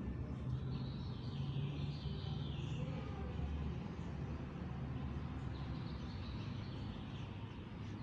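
Outdoor street ambience: a steady low rumble of distant traffic, with a high twittering in the first three seconds and faintly again later.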